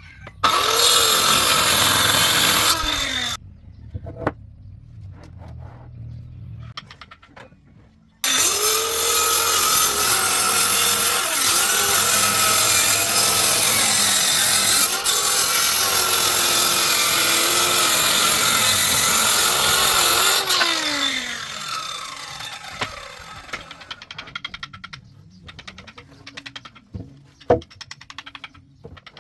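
An electric power tool cutting wood in two passes: a short cut of about three seconds, then a long cut of about twelve seconds that winds down as the motor coasts to a stop. A few sharp knocks come near the end.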